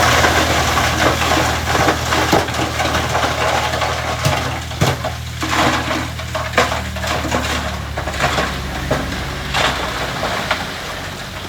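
Rocks clattering, cracking and knocking as loose stone is shoved and tumbles, over the steady drone of a heavy diesel engine. The engine drone drops away near the end.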